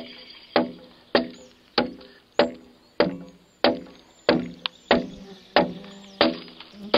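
Broad axe chopping into a pine log during hand hewing: a steady run of about eleven sharp strikes, a bit more than one and a half a second, each with a short woody ring.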